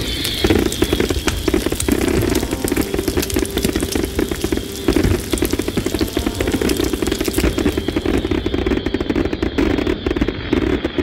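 A frying pan bursting into flame: a rush of fire at the start, then dense, steady crackling and sizzling.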